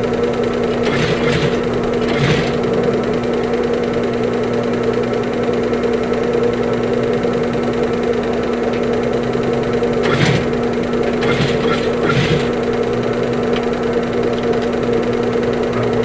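Sewing machine running with a steady hum while stitching a bag's zipper, with a few brief louder noises about one, two and ten to twelve seconds in.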